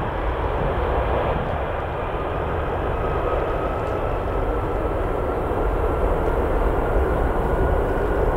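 Boeing 747-200 freighter's four Rolls-Royce RB211-524D turbofans running at take-off power during the take-off roll: a steady, loud rumble with a faint whine that rises slightly in pitch from about three seconds in.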